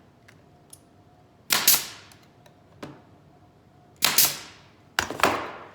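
Nails being driven into a mahogany picnic-table leg: three loud, sharp impacts, each a quick double strike with a short ring, about a second and a half in, then near the end twice a second apart.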